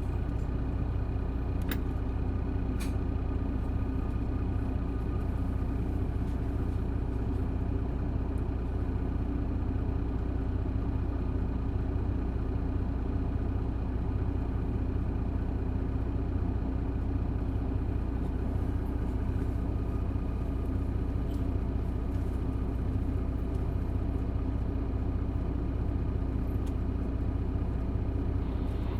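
Isuzu Erga PJ-LV234N1 city bus's six-cylinder diesel engine running steadily at an even engine speed, heard from inside the bus, with a couple of faint clicks about two seconds in.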